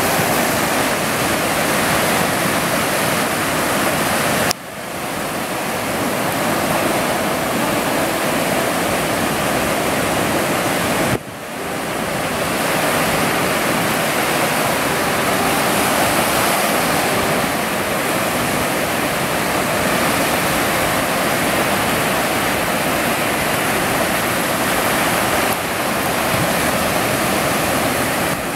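Steady roar of surf breaking on a beach. The roar drops off suddenly twice, about four and a half and eleven seconds in, and swells back within a second or so.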